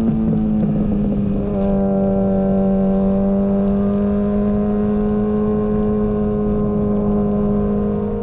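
Yamaha R6 inline-four motorcycle engine running at steady high revs, its pitch held nearly constant with only slight drift.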